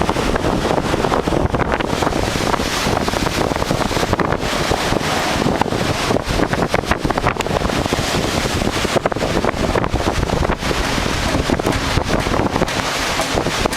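Strong, gusty hurricane wind buffeting the camera microphone: a loud, rushing noise that rises and falls with the gusts.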